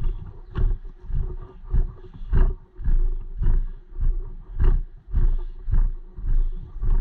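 Footsteps of a person walking in time, a heavy low thump about every half second, with rustle and knock on the microphone at each step.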